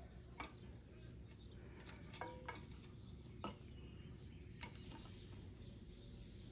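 A few faint, scattered clicks and light taps from small parts and tools being handled at the mower's fuel line and carburetor, over a low steady hum.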